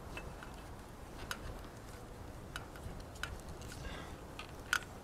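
Black electrical tape being wrapped by hand around wiring, giving scattered small clicks and crackles; the sharpest click comes near the end.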